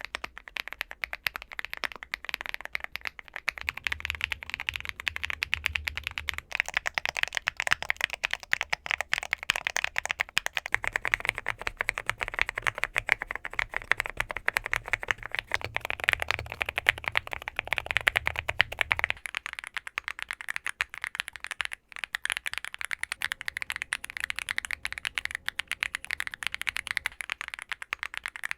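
Fast, continuous typing on a Womier SK65 mechanical keyboard with Mint Blizzard switches and GMK Hanami Dango double-shot ABS cherry-profile keycaps: a dense, unbroken stream of sharp, high keystroke clicks.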